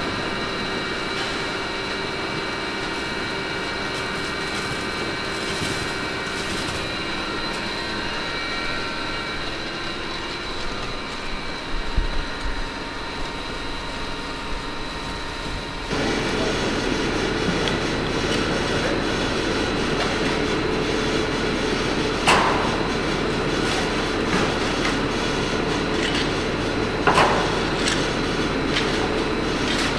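McLanahan sand separator and a long-idle belt conveyor, its rollers freshly greased, running steadily under a light load of wet sand, with a continuous rattle and hum. About 16 seconds in, this gives way to a louder, steadier machine hum, with two sharp clanks later on.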